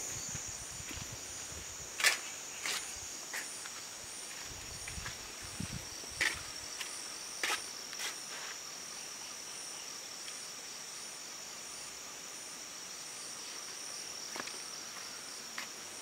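Crickets trilling steadily in a high, unbroken chorus, with a few sharp clicks or steps, most of them in the first half.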